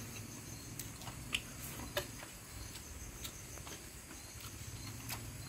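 Steady, faint chirring of insects, with a few soft clicks and smacks of someone chewing tough roasted meat.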